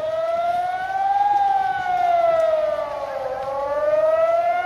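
Warning siren wailing, its pitch slowly rising, falling and rising again, with about four seconds to a full cycle. It is a flood alarm sounding in heavy rain.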